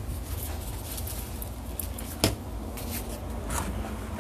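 Kitchen room noise with a steady low hum, faint handling ticks and one sharp knock a little over two seconds in.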